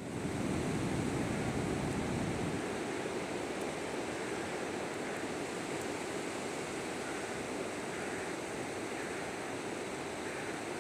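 Surf washing onto a beach: a steady rushing noise, with a heavier low rumble for the first two or three seconds that then eases.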